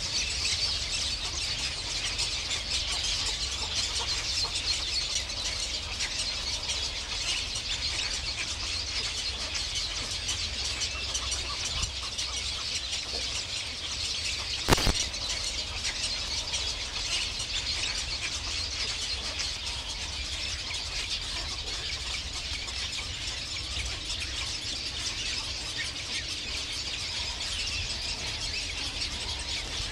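A dense, steady chorus of high chirping and squealing birds, with a single sharp click about halfway through.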